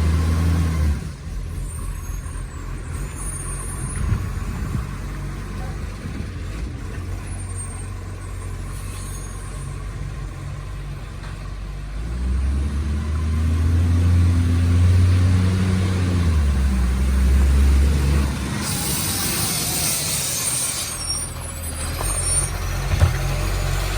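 Garbage truck's diesel engine, which has an exhaust leak, revving hard, dropping back to a lower run after about a second and revving up again for several seconds around the middle. Near the end comes a loud hiss of released air lasting about two seconds.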